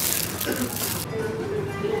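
Background music, with a brief rustling noise in the first second and a held note in the second half.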